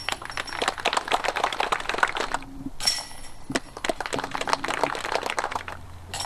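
Disc golf putts hitting a basket's hanging metal chains: each a sharp ringing strike followed by a couple of seconds of jangling chains. One rattle is already going and dies away, a second comes about three seconds in, and a third starts at the very end.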